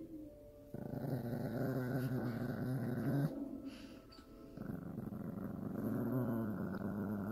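Small brown dog growling low in two long growls: the first starts about a second in and lasts about two and a half seconds, the second starts about a second later and carries on past the end.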